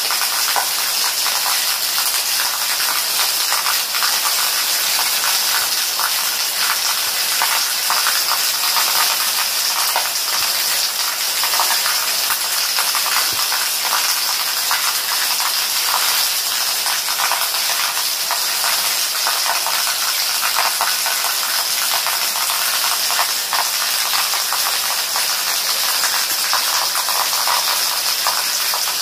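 Steady rain falling on plant leaves at night, a constant hiss with a dense patter of drops.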